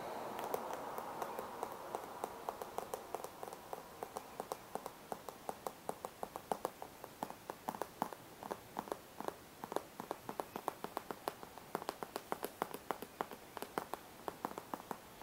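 Long fingernails tapping rapidly on a printed cardboard product box: a steady run of sharp clicks, several a second.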